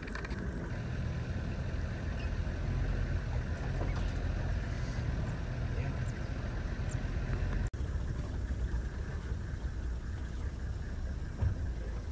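Safari vehicle driving on a dirt track, heard from inside its open-roof cab: a steady low engine and road rumble. The sound drops out for an instant about two-thirds of the way through.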